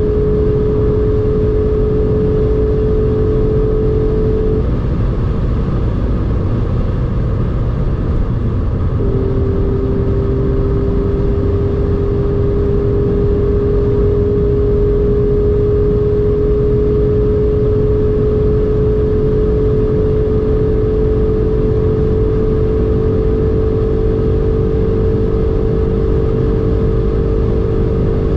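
Golf R32's 3.2-litre VR6 engine, heard from inside the cabin at Autobahn speed, droning steadily in a high gear under heavy wind and road noise. About five seconds in the engine note drops away for some four seconds as the throttle eases. It then returns a little lower and rises slowly as the car picks up speed again.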